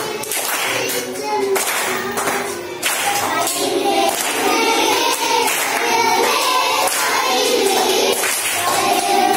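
A group of schoolchildren singing a Malayalam poem together and clapping along in time. The claps are clearest in the first few seconds.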